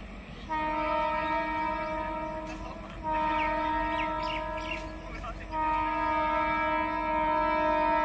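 Horn of an approaching Indian Railways local train sounding three long blasts, almost back to back, each about two and a half seconds.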